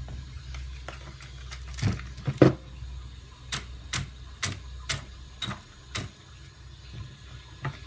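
A series of sharp clicks, a few close together about two seconds in, then a regular run of about two a second, over a low steady hum.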